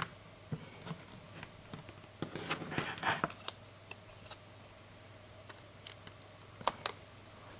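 Plastic parts of a screen-protector installation tray being handled and fitted: scattered light clicks, a short scraping rustle about two to three seconds in, and two sharp clicks near the end.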